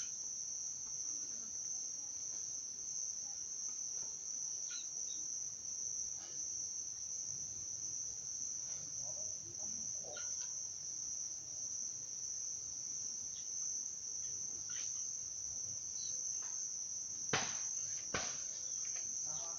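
A continuous high-pitched insect drone holds steady throughout. Two short knocks come near the end.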